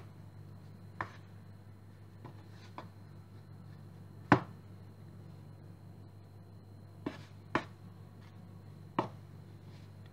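Scattered light knocks and taps, about seven in all and the loudest about four seconds in, from utensils and a bowl being handled on a kitchen counter while shaping dough, over a steady low hum.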